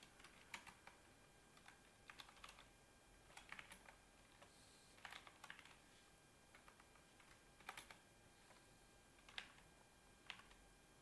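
Faint computer keyboard typing in short bursts of keystrokes with pauses between, then a few single clicks near the end.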